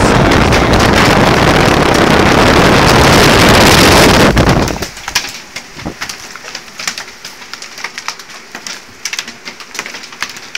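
Thunderstorm: a loud roar of wind and heavy precipitation, with wind buffeting the microphone, drops off suddenly about four and a half seconds in. What remains is a steady scatter of sharp taps from drops or stones striking nearby.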